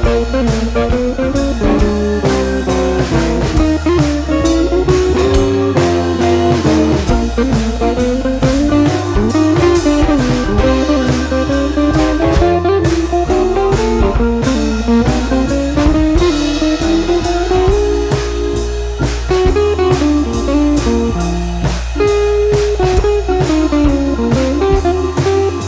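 Blues-style background music: a lead guitar playing a gliding, bending melody over a steady drum beat.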